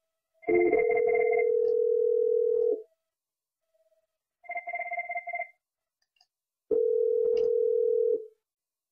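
Cisco softphone call ringing out: the caller hears the steady low two-note ringback tone, on for about two seconds, twice. The called softphone's ringer trills in short bursts, once with the first ringback and once in the gap between. This shows the call from Manager to Secretary is going through.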